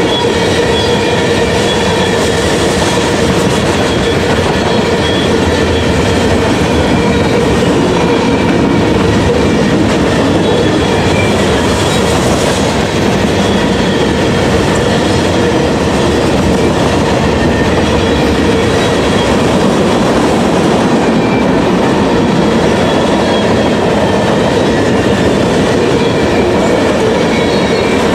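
Freight train rolling past at trackside: steel wheels on rail, loud and steady, with a faint clickety-clack and a steady ringing tone over the noise.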